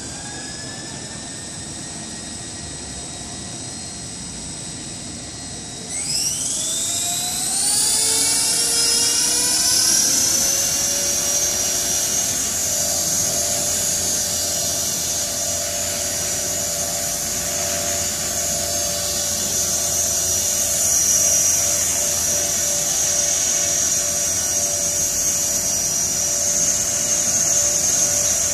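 Electric CopterX 450 RC helicopter's motor and rotor spooling up: a rising whine that levels off about a second in, then a second climb in pitch and loudness about six seconds in. From about ten seconds in it holds a steady high-pitched whine.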